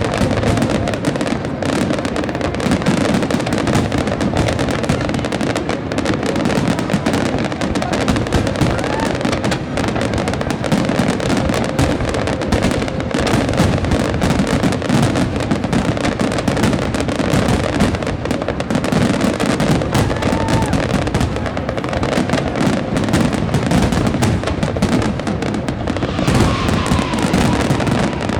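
Fireworks display finale: a dense, unbroken barrage of shell bursts and crackling, with no pauses between them.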